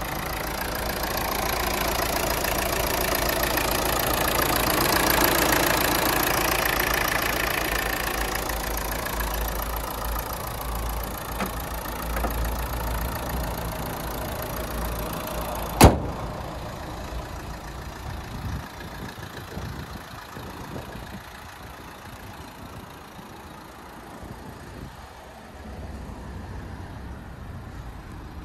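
Renault 1.5 dCi four-cylinder turbodiesel idling steadily. A single sharp bang comes just past halfway, after which the engine sounds quieter.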